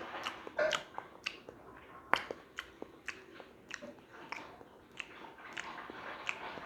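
Someone chewing close to the microphone, with a sharp crunch or click about twice a second that starts suddenly.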